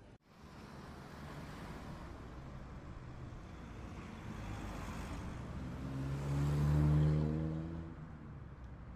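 Steady street traffic noise, with a motor vehicle passing close about six seconds in. Its engine hum swells to a peak and fades away within about two seconds.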